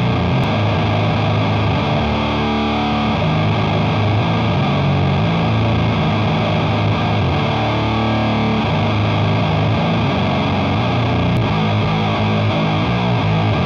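Electric guitar played through the Doomsaw, a single-knob pedal modelled on the Boss HM-2 chainsaw distortion, into a Matamp valve amp. A riff of held low notes with thick, grinding distortion, the notes changing a few times.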